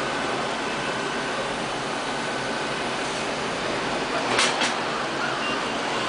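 Robot vacuum cleaner running on a glass table top, its fan and drive motors giving a steady whirr, with two short sharp clicks about four and a half seconds in.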